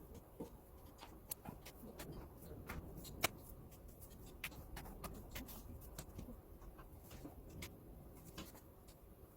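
Faint, irregular sharp clicks and taps, one or two a second with a louder one about three seconds in, over a low steady rumble.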